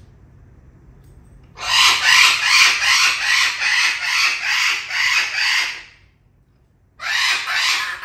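Parrot giving a loud, rapidly pulsing squawking call for about four seconds, then a shorter burst of the same call near the end.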